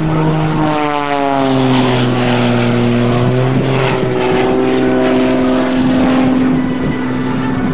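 Pitts aerobatic biplane's engine and propeller running at full power. The note drops in pitch about a second in as the plane passes and pulls up into a vertical climb, then holds steady at the lower pitch.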